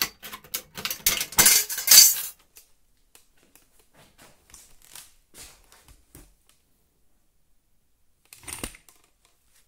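Small sheet-metal offcuts clinking and rattling against one another as they are handled, a dense run of clinks for the first two seconds, then scattered faint ticks and a short rattle near the end.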